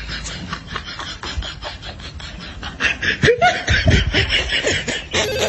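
Snickering laughter in quick short bursts, getting louder about three seconds in. Near the end a phone ringtone starts.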